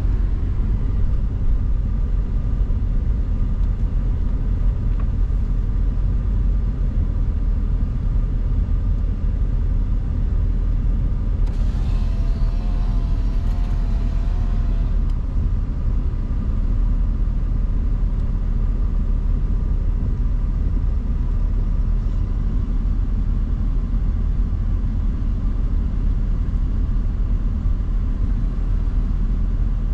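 Steady low rumble of a car driving, with a brief higher hiss about twelve seconds in.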